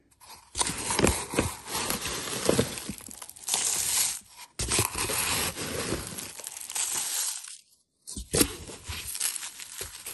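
Lechuza TerraPon granular substrate being scooped from its bag with a plastic scoop and poured into a plastic measuring cup: gritty scraping and rustling of the grains, with small clicks as they hit the cup. The sound breaks off briefly about three-quarters of the way through.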